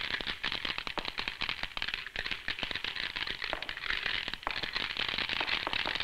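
Glass marbles pouring from a clear box onto a heap of marbles, a dense run of small clicks and clatter as they tumble against each other and settle.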